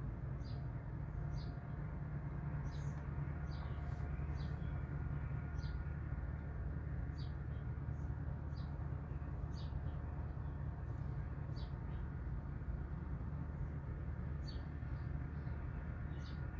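Steady low drone of a large wood chipper running, with a bird giving short high chirps about once a second over it.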